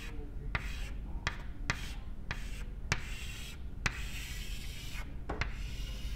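Chalk on a blackboard: a series of sharp taps and short strokes as a diagram is drawn, with a stretch of rapid scratching in the middle as small areas are hatched in.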